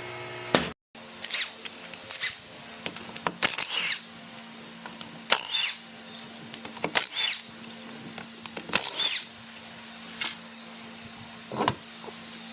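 A handheld power tool run in short bursts, roughly eight to ten times at uneven intervals, over a steady low hum.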